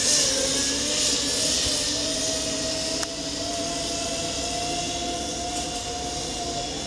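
Zipline trolley pulleys rolling down a steel cable, a steady whine that slowly rises in pitch as the rider gathers speed, over a hiss that fades after the first couple of seconds.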